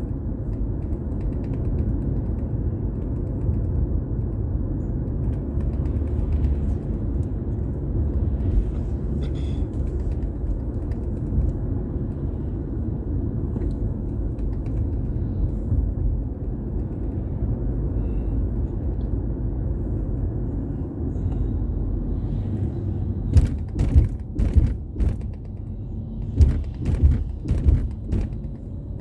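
Car's engine and road rumble heard from inside the cabin while driving, low and steady. A cluster of sharp knocks and thumps comes in the last six seconds or so.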